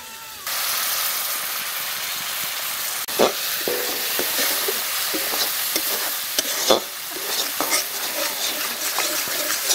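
Masala paste sizzling as it fries in oil in a metal wok, starting suddenly about half a second in. A spatula stirs and scrapes it, with a couple of sharper knocks against the pan.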